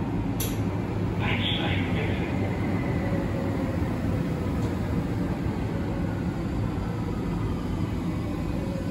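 Berlin U-Bahn F90 train running, heard from inside the car: a steady rumble of wheels on rails with a faint whine from the three-phase traction drive that slowly shifts in pitch. A single sharp click about half a second in.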